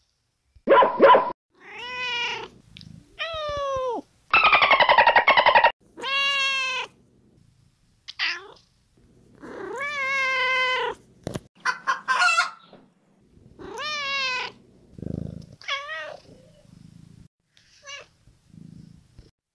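A string of separate domestic cat meows, about eight or nine of them, most falling in pitch and one drawn out about ten seconds in. About four seconds in comes one loud, rough, rapidly pulsing cry, the loudest sound, and there are a few soft low sounds near the end.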